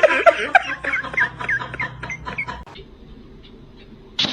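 Cat making a quick run of short chirping calls, about four a second, which die away after about two and a half seconds.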